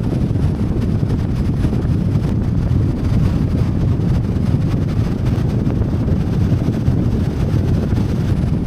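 Steady, loud rushing noise, heaviest in the low end, of a vehicle on the road with wind buffeting the microphone.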